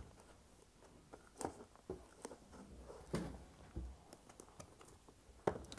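Hands handling modelling clay and plastic toy pizza-oven pieces on a table: a few faint scattered taps and clicks.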